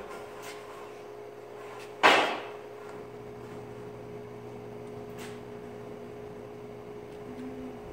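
A square steel bar set down on a steel workbench with one sharp metallic clank about two seconds in, ringing briefly, and a small click a few seconds later, over a steady low hum.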